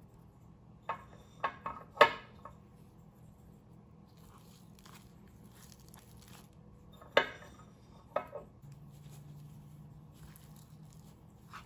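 Food preparation on a wooden cutting board: a cluster of sharp knocks and clacks about one to two and a half seconds in, two more around seven and eight seconds, and faint rustling of hands handling and rubbing seasoning into raw pork tenderloins.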